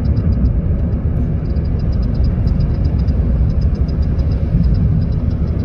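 Steady road and engine rumble of a moving car, heard from inside the cabin, with a light, rapid ticking over it.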